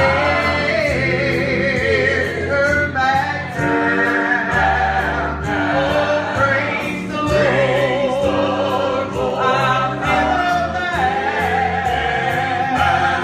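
A gospel singing group sings in several-part harmony, with vibrato on long held notes, over a steady musical accompaniment with a beat.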